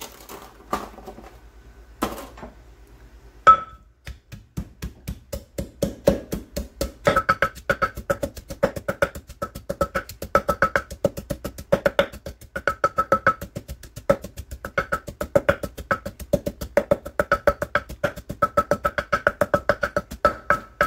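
Wooden pestle pounding garlic, white peppercorns and coriander roots in a terracotta clay mortar: a few scattered knocks, then from about four seconds in rapid, steady strikes, each a short ringing knock from the clay bowl, as the aromatics are crushed to a paste for a marinade.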